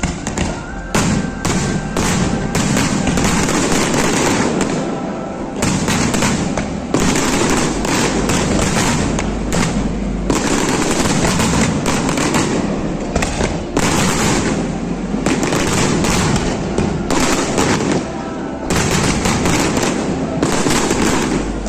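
Fireworks display: a dense, unbroken run of bangs and crackling, bursts following one another in quick succession.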